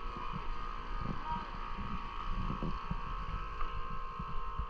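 A steady high-pitched hum with irregular wind rumble on the microphone.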